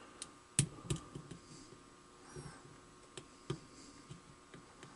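Faint, scattered clicks of a lock pick and tension wrench working the pins of a brass pin-tumbler padlock during single-pin picking, about seven separate ticks spread unevenly.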